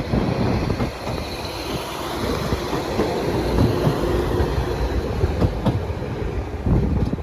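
Transport for Wales class 197 diesel multiple unit pulling out of the station: a steady low engine and wheel rumble, with a few sharp clicks from the wheels over rail joints in the second half.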